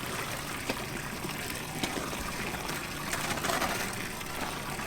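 Steady sound of running water, with a few faint clicks.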